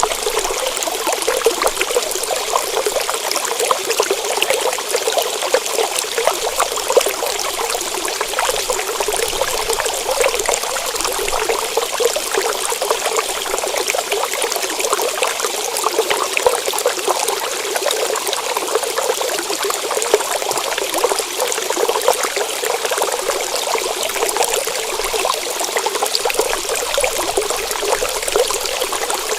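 Water trickling steadily, a continuous fine splashing.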